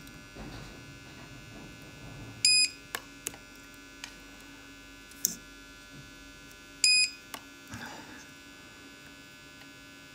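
Battery-powered spot welder firing on nickel strip and 18650 cells: twice, about four seconds apart, a short high beep followed by a sharp snap of the weld, over a steady electrical hum.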